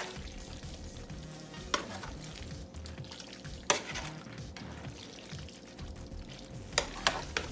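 Food sizzling in a frying pan, with several sharp clinks of a utensil against the pan, three of them close together near the end.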